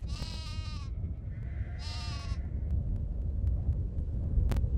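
Two wavering bleats from a grazing flock of sheep and goats, the first right at the start and the second about two seconds in, over a steady low rumble.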